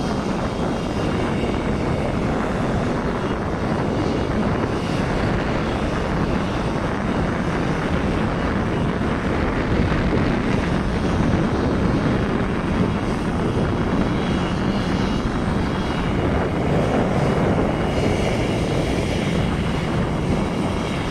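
Rear-mounted turbofan engines of a twin-engine business jet running at taxi power: a steady rushing noise with a faint high whine, its pitch easing down a little near the end. Wind buffets the microphone throughout.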